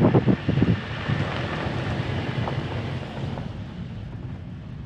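Wind rushing over the microphone with the road noise of a slowly moving vehicle beneath it; the strongest gusts come in the first second, then a steady rush that gradually fades.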